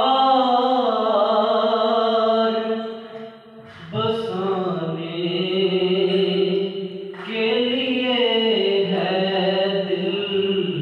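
A man's voice in melodic Islamic recitation through a microphone and loudspeakers, in the drawn-out style of a qari. The phrases are long and held, with a break for breath about three and a half seconds in and a shorter one about seven seconds in.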